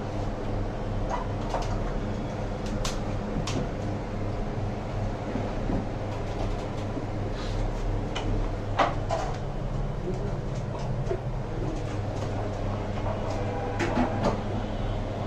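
Hot air rework station blowing steadily while heating a phone's circuit board, under a low mains hum, with scattered small sharp clicks of tools on the bench.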